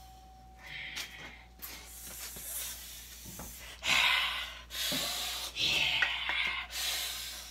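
Rushing, rubbing noises close to the microphone as a person moves against it, in several bursts with the loudest about four seconds in and again near the end. A fading ring on one pitch dies away about two seconds in.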